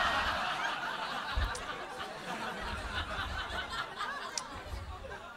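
Audience laughing after a joke, loud at first and dying away over the few seconds.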